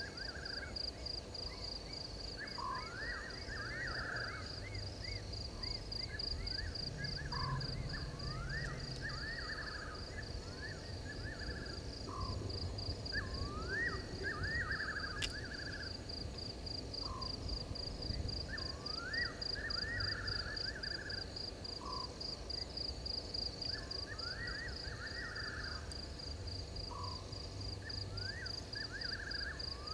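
Night animal chorus: an insect trills steadily at a high pitch, while groups of rising, chirping calls repeat every two or three seconds. A single sharp click comes about halfway through.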